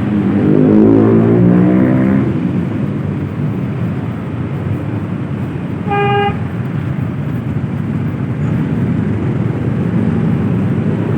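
Steady road and engine noise of a moving vehicle. An engine rises in pitch over the first two seconds, and a horn gives one short beep about six seconds in.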